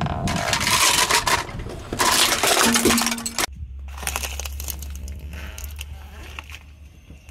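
Hard plastic toy cracking and crunching under a rolling car tyre, in two loud stretches of dense crackling. Then a steady low car engine rumble with a few scattered small crackles as the tyre meets a stack of small cardboard boxes.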